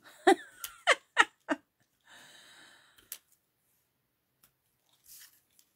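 A woman chuckling in four short bursts, then a breathy exhale and a sharp click.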